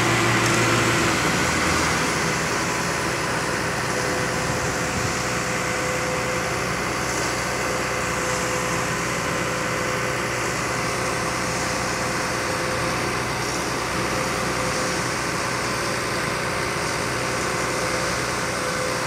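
Diesel engines of Astra concrete mixer trucks running steadily with their drums turning while unloading concrete, a continuous heavy-machinery hum that eases slightly about a second in.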